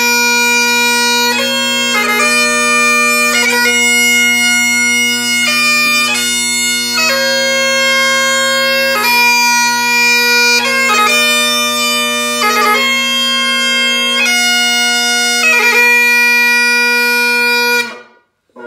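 Great Highland bagpipe playing a slow piobaireachd lament: low steady drones under a chanter melody of long held notes, changing every second or two and broken by crisp grace-note gracings. Near the end the drones and chanter stop together as the tune finishes.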